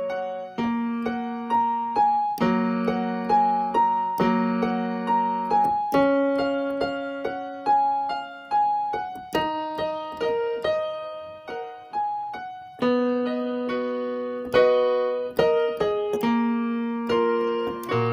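Background piano music: a gentle melody of struck notes at an even, unhurried pace over low sustained chords.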